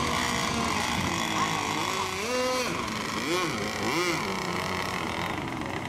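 Radio-controlled racing boat running at speed on the water, a steady whine, with people's voices about two seconds in.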